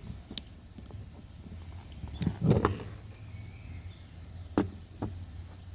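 A few sharp plastic clicks and knocks from the Kärcher KB5 sweeper's housing being pried apart and handled, the loudest cluster about halfway through, over a low steady hum.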